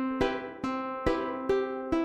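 Background music: plucked strings, ukulele-like, playing notes in a steady rhythm of about two to three a second.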